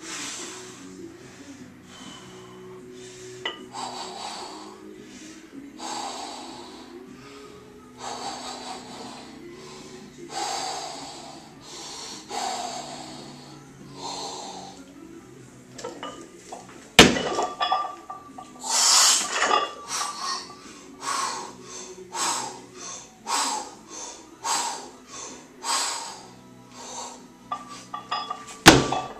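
A weightlifter breathes heavily and deeply as he sets up over a loaded Olympic barbell. A sharp, loud clank of the barbell and plates comes about halfway through, then fast, hard breathing during the lift, and a second loud clank of the bar just before the end. Quiet background music plays underneath.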